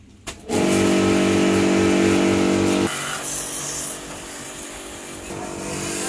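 A machine's motor starting up and running with a steady hum over a fast pulsing beat, dropping to a quieter, hissier running sound about three seconds in.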